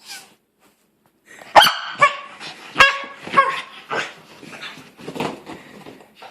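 Boston terrier giving a quick string of short, high yelping barks and cries, starting about a second in, the loudest near the beginning. These are odd protest noises at a new sweater she apparently dislikes.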